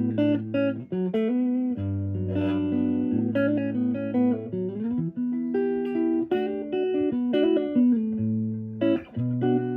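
1960 Fender Jazzmaster electric guitar on its neck pickup, played through a 1959 Fender Champ valve amp: a passage of picked chords and single notes with the controls wide open. The guitar is a little buzzy from its low frets and nut.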